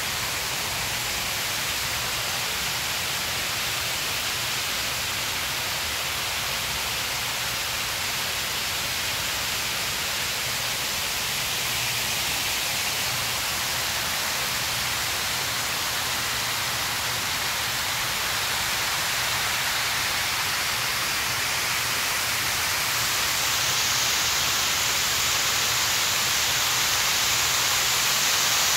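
Steady rushing hiss of moving water from a water feature in a pond, with no breaks or separate events. It grows a little louder near the end.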